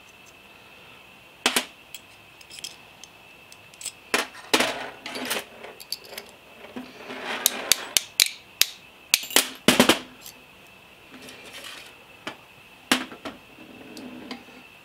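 Small steel parts clinking and knocking against each other and the metal bench top: the Hardinge collet closer's pivot pins and locking dogs being handled, pushed out and set down. The sharp clicks come singly and in quick clusters.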